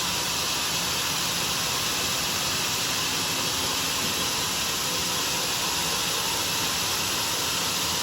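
Homemade sawmill running with a steady, even hiss of noise that holds unchanged throughout.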